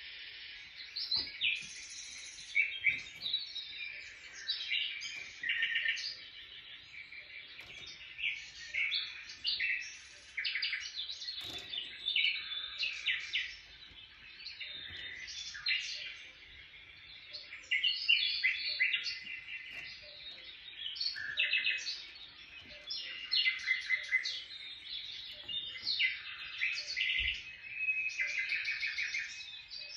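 Small birds chirping continuously, many short high calls overlapping and repeating.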